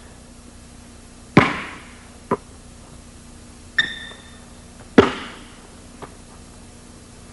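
A basketball's sharp impacts echoing in a gym: a loud smack about a second and a half in, a smaller knock, and the loudest smack about five seconds in as the ball is caught in both hands. A short sneaker squeak on the hardwood comes just before the catch.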